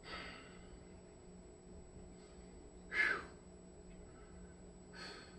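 A man breathing hard to recover after an exercise set: three short, airy breaths about two seconds apart, the middle one loudest.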